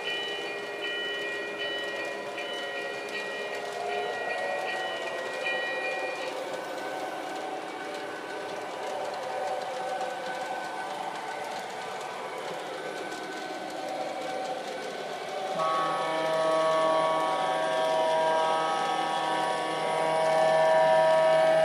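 Model train running on a ceiling-shelf track: a steady running hum with several held tones that change a few times, louder over the last few seconds.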